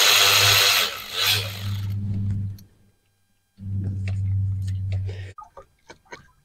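Cordless electric ratchet running on engine bolts in two runs with about a second's pause between them. The first run starts with a harsh high rattle that fades to a steady whir. A few light metallic clicks of tools on the engine follow near the end.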